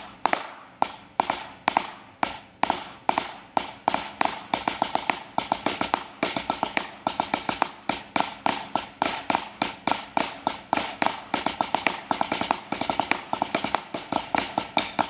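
Snare drum played with wooden sticks: repeating five-stroke roll figures, each group of quick strokes led by a louder accent, with the double strokes delayed. The figures come about twice a second at first and grow denser after about four seconds.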